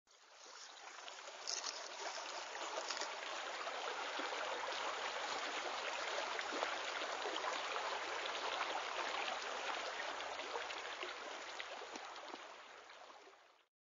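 Running water like a small stream, an even splashing hiss full of fine crackles that swells in over the first couple of seconds and fades out shortly before the end.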